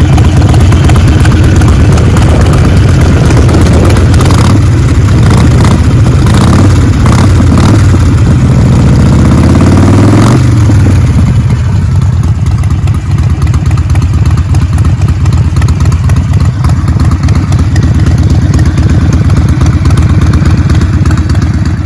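Harley-Davidson Sportster 48's air-cooled V-twin through a Vance & Hines full-system exhaust: it blips the throttle several times and revs up with rising pitch, then drops sharply back to a lumpy, pulsing idle about halfway through.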